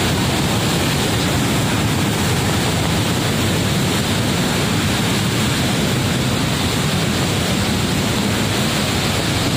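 Steady, even rush of a rocky forest stream and its cascades.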